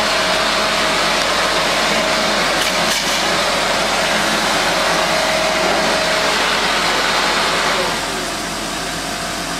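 Handheld leaf blower running steadily with a constant whine, used to blow snow off a car. It gets a little quieter about eight seconds in.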